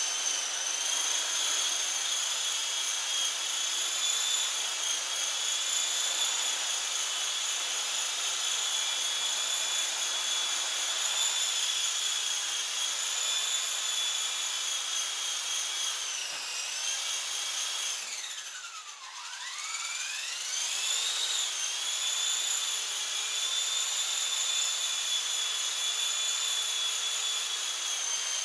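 Small electric RC helicopter (Looky II) whining steadily at high pitch as its motor and rotor hold it in hover. About two-thirds of the way through, the whine drops steeply in pitch and climbs back up as the throttle is eased off and reapplied.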